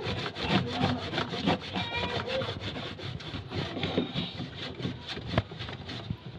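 Hands tightening the check nut under a washing machine's plastic tub: a run of rubbing, scraping and small clicks against plastic and metal, with a sharper knock about five seconds in.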